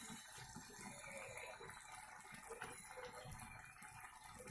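Faint bubbling of thick lentil-and-spinach dal simmering in the pan, with soft scattered blips over a low steady hiss.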